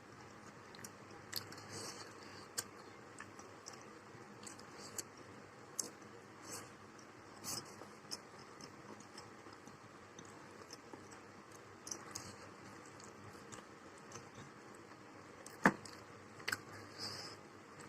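A person eating and chewing, with soft wet and crunchy mouth sounds and scattered small clicks, and one sharp click a little before the end.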